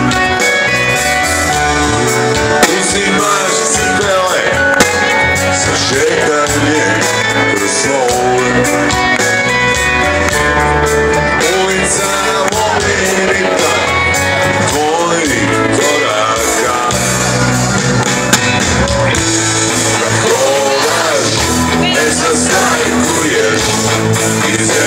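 Rock band playing live, with guitars and drums.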